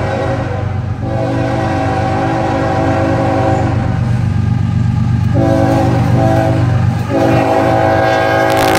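Freight train's diesel locomotive approaching, blowing its air horn, a chord of several notes, in long blasts with short breaks, over the rising rumble of the engine. The locomotive's roar rises sharply as it reaches the microphone near the end.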